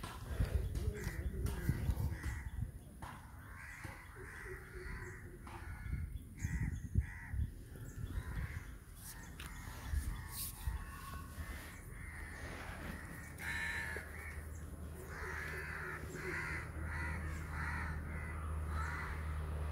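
Crows cawing repeatedly in runs of short calls, with a low steady hum coming in about two-thirds of the way through.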